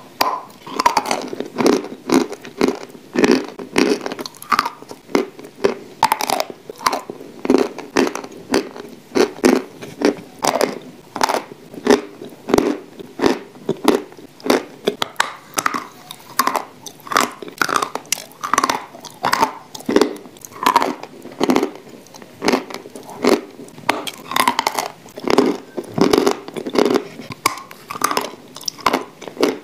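Close-up dry crunching and chewing of lumps of edible chalk and clay (New Oskol chalk, Turkestan clay) being bitten and ground between the teeth, a loud crunch about every second with smaller crunches in between.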